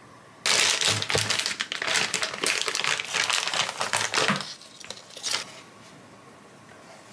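Paper packaging of flat fish cake sheets crinkling as the sheets are pulled out of it. It starts suddenly about half a second in, runs for about four seconds, and gives one more short rustle about a second later.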